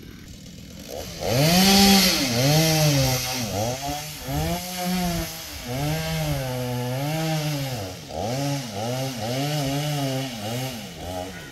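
Stihl two-stroke chainsaw cutting coconut wood. Its engine speed sags again and again as the chain bites and then picks back up. It starts about a second in and stops just before the end.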